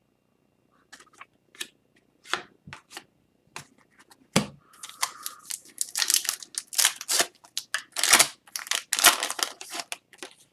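Hockey trading cards being handled: a run of short swishing and flicking sounds as the cards are slid and sorted, sparse at first and coming thick and fast in the second half.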